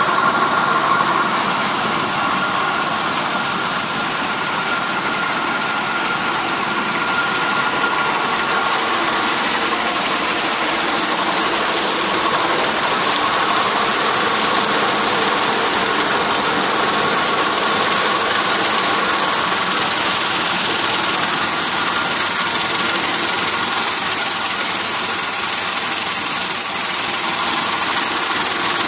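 Silica sand washing plant machinery running: a steady, continuous mechanical din from the conveyors, screw sand washer and vibrating screen, with a broad hiss and a faint steady whine through it.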